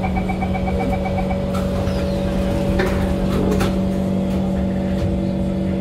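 Steady electrical hum and low rumble of an SMRT Kawasaki C151 metro train, with a rapid series of short beeps over the first second and a half and a few sharp knocks after.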